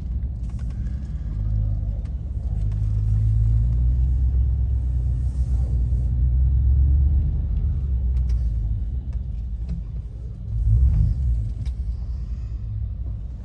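Low rumble of a car's engine and tyres heard from inside the cabin while driving, swelling louder for a few seconds in the middle and briefly again near the end.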